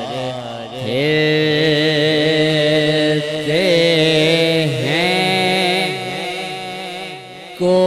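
Devotional naat singing: long, drawn-out vocal notes held for a second or more each, wavering and bending in pitch, with a brief drop in level near the end.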